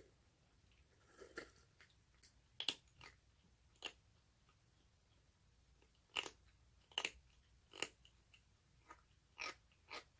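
Baby orange tabby kitten chewing its food: faint, crisp crunches, about ten of them at uneven intervals.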